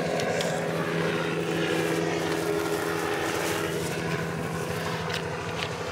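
Helicopter running steadily overhead, an unbroken engine and rotor hum.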